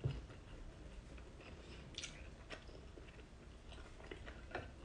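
A person chewing food with the mouth closed, with a few faint sharp clicks of the mouth.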